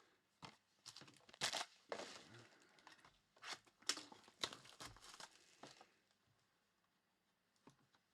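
Plastic wrapping on a box of trading cards being torn open and crinkled in a string of short, uneven rustles that stop about six seconds in.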